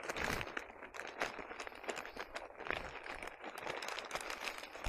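Brown paper bag rustling and crinkling as it is handled and pushed into a soft motorcycle tail bag, with many irregular small crackles and ticks.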